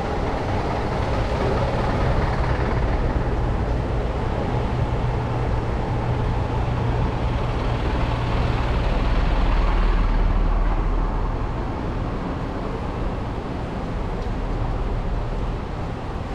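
Road traffic noise with the low engine rumble of a heavy vehicle, swelling as it passes about two-thirds of the way through and then easing off.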